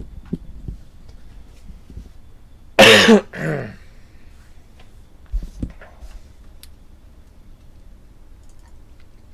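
A man coughs twice in quick succession about three seconds in, the first cough louder. A few soft, low knocks come before and after.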